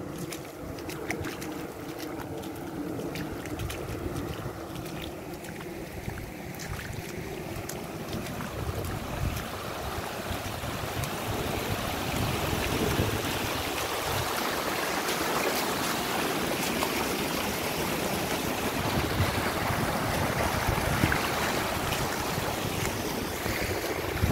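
Tidal floodwater rushing across a fishpond embankment. A steady rushing that grows louder about a third of the way in, with wind buffeting the microphone. A low steady drone runs under the first several seconds.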